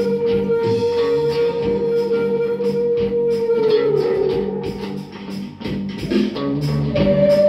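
Hand whistle blown into cupped hands, holding a long, nearly pure whistle-like note over electric guitar strumming. The note sags in pitch and drops out about five seconds in, and a higher held note comes in near the end.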